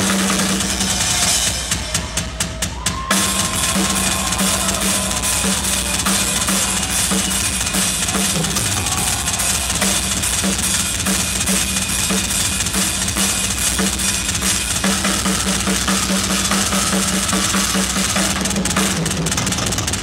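Live rock drum solo on a Yamaha drum kit: a few separate heavy hits about two seconds in, then fast, continuous playing of bass drums, snare and toms with cymbals.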